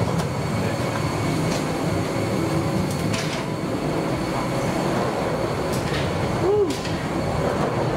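Steady mechanical drone and rumble of a parked airliner and its jet bridge, heard while walking off the plane up the jet bridge, with a few light knocks.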